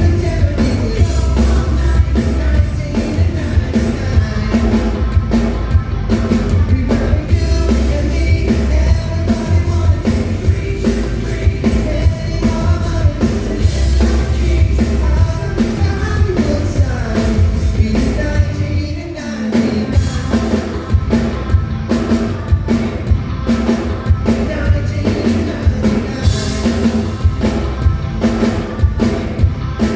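Live band playing a rock-pop song with a lead singer over a steady drum-kit beat. There is a short break about two-thirds of the way through, then the band comes back in.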